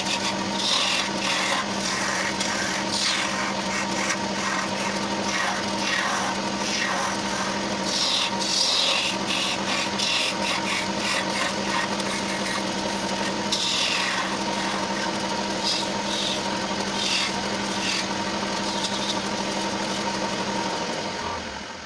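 Wood lathe running with a steady motor hum while a long-handled turning gouge cuts a spinning wooden spindle, giving repeated scraping, shaving strokes. The motor stops near the end and the sound dies away.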